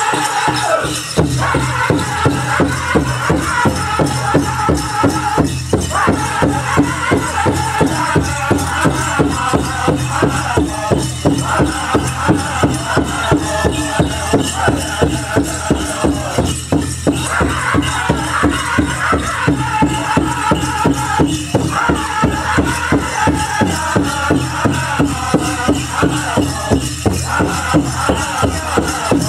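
Powwow drum group singing a chicken dance song: high-pitched group singing in phrases over a steady drumbeat.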